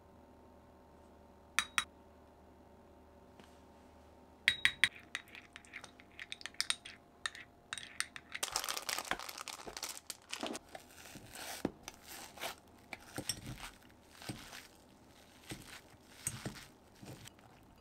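Kitchen handling sounds: a couple of light clinks, then a run of small clicks and taps, followed about halfway through by crinkling and rustling with scattered taps.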